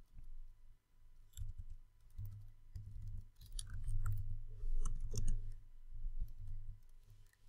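Typing on a computer keyboard: a run of irregular key clicks with dull thumps, busiest in the middle.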